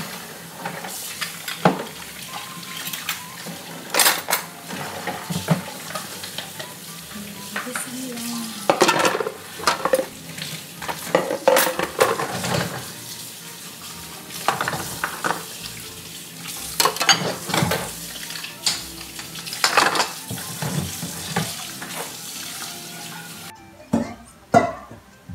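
Kitchen tap running into a stainless-steel sink while dishes are washed, with frequent clatters and knocks of metal bowls, a colander and utensils. The running water stops near the end, leaving a few more knocks.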